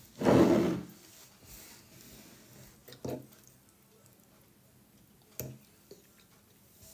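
Eating at the table: a short loud noisy burst about a second long at the start, then a few light clicks of a fork against a ceramic bowl, spread a couple of seconds apart.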